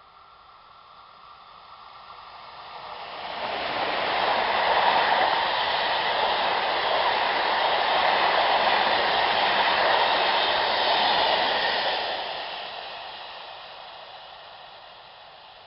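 Freight train hauled by a DB class 151 electric locomotive with a string of self-discharging hopper wagons passing close by: the wheel-on-rail noise builds, turns loud about three seconds in, stays loud for some eight seconds as the wagons go past, then fades as the train runs away.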